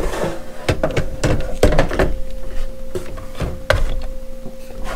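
Knocks and clunks of two cordless DeWalt impact drivers and their battery packs being handled and set down on a tabletop. The knocks come as a string of irregular thunks.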